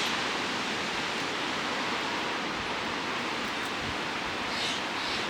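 Strong storm wind rushing steadily through trees, with a couple of low thuds about halfway through.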